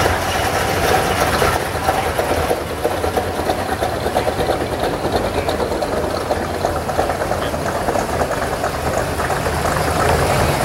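Exhaust of classic American cars idling along at walking pace, a steady low engine sound with an even pulse.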